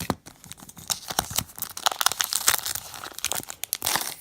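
A trading-card pack wrapper being torn open and crinkled by hand: a dense run of sharp crackles and rips.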